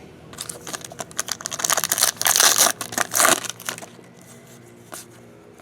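Plastic trading-card pack wrapper being crinkled and torn open: about three seconds of crackling, loudest past the middle, followed by quieter handling and a single click near the end.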